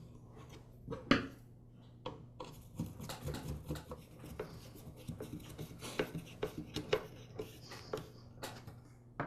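Screws being driven with a screwdriver into the plastic cover of a Weed Eater XT10 electric string trimmer's motor housing. A knock about a second in, then a run of small irregular clicks and ticks as the screws are turned and the plastic parts are handled.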